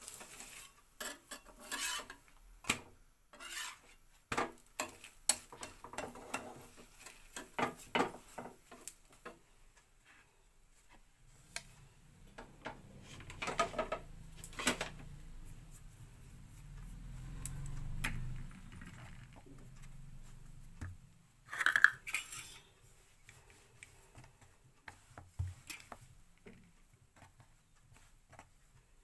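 A metal spatula clinks, taps and scrapes against an iron tawa as a paratha is pressed and turned, with many quick strokes at first and then only a few. A low rumble swells and fades in the middle, and a single loud metallic clatter rings out about 22 seconds in.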